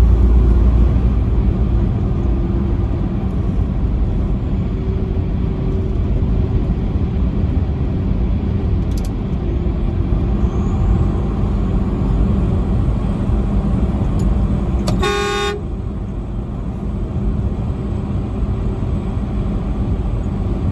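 Steady highway road noise with a low rumble, and a truck horn giving one short blast of about half a second roughly fifteen seconds in.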